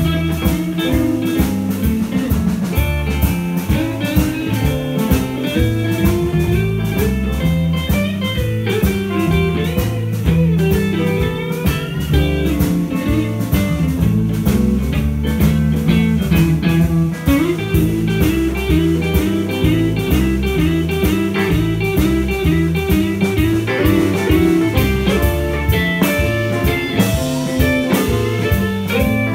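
Live electric blues band playing an instrumental passage without singing: lead electric guitar over bass guitar, rhythm guitar and drum kit, with a quickly repeated guitar note figure in the second half.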